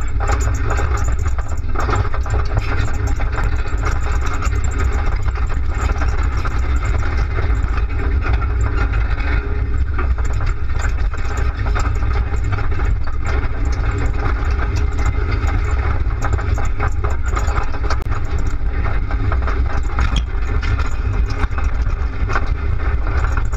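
Off-road 4x4's engine running as it drives over a rough dirt track, a steady low rumble, with rattling from the bumper-mounted camera as the vehicle bounces.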